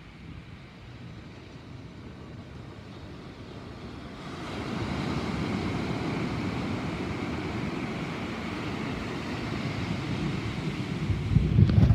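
Thunderstorm: a long, low rumble of thunder swells about four seconds in and grows loudest near the end, over wind noise on the microphone.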